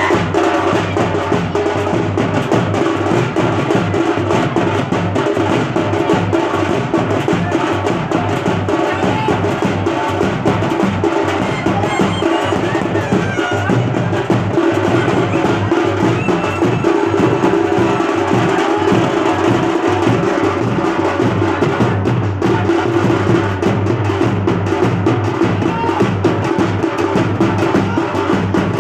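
A street band of large double-headed bass drums and side drums playing a loud, steady, driving beat, with a clarinet playing a melody over the drumming.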